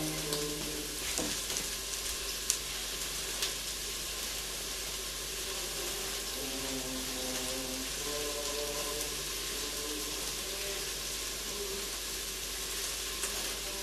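Onion frying in oil in a pan on the stove, a steady sizzle. A few light knocks in the first few seconds.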